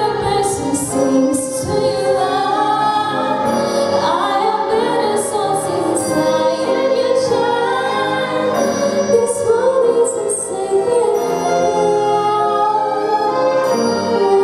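A school orchestra playing a song while voices sing the melody over it, continuous and steady in level.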